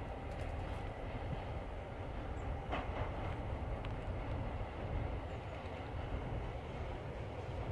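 Class 661 diesel-electric locomotive approaching with a freight train, heard as a low, distant rumble from its two-stroke diesel engine that grows slowly louder.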